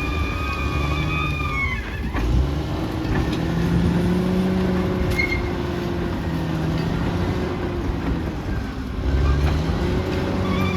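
Caterpillar D6R XL bulldozer's diesel engine running under shifting load, its pitch rising and falling, with a high whine that falls away about two seconds in and returns near the end.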